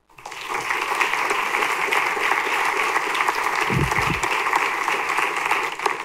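Audience applauding. The clapping starts suddenly, builds within half a second, holds steady and begins to fade near the end, with a short low thump about four seconds in.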